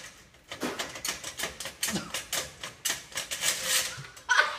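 Hand saw cutting through a metal cable tray in short, uneven strokes, roughly three a second, starting about half a second in.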